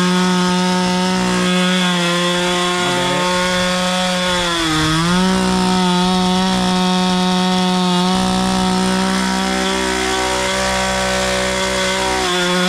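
Chainsaw running at high speed through wood, its pitch sagging briefly about five seconds in, then recovering and holding steady.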